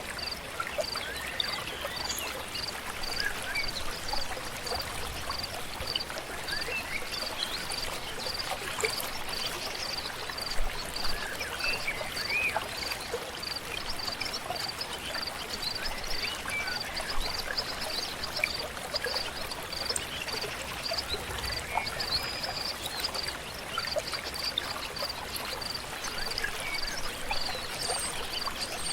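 River flowing steadily, with a high, thin call repeating evenly about twice a second throughout and scattered short bird chirps.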